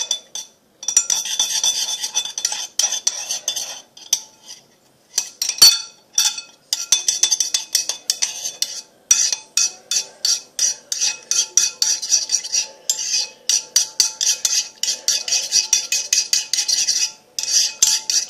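A utensil stirring body wash and shower cream in a ceramic bowl: fast, repeated scraping and clinking against the sides of the bowl, with a few short pauses. About five and a half seconds in there is one sharper knock.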